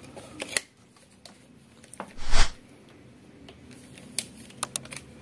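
Handling noise as a digital multimeter and its test leads are picked up and moved off the TV's sheet-metal back panel: light clicks and rustles, with one loud thump a little over two seconds in and a few more small clicks near the end.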